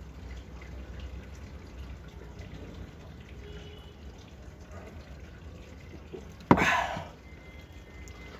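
Faint liquid sounds of whisky and soda being drunk from a glass. About six and a half seconds in comes one short, sharp knock as the glass is set down on the wooden table.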